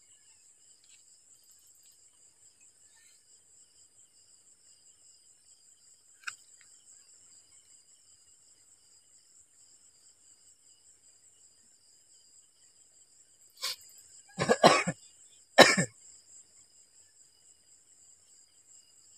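Crickets chirping steadily in the background. About two thirds of the way through, a person coughs three times in quick succession, loud against the insects.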